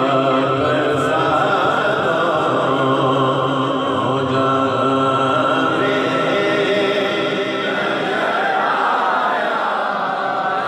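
A man singing a naat, an unaccompanied Urdu devotional poem in praise of the Prophet, into a microphone, in long held, wavering melodic lines.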